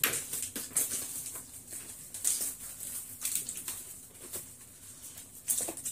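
Paper and plastic food wrapping crinkling and rustling as it is pulled out of a takeaway bucket and bag, in short, irregular crackles.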